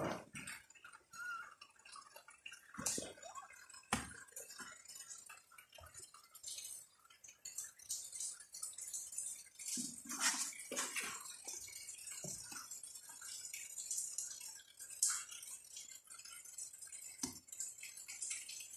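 Kittens playing: scattered light taps, clicks and scratches of small claws on a cardboard box and a concrete floor.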